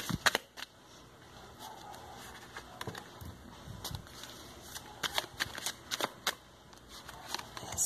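A deck of tarot cards shuffled by hand: quick clusters of card flicks and taps just after the start and again about five to six seconds in, with softer rustling of cards between.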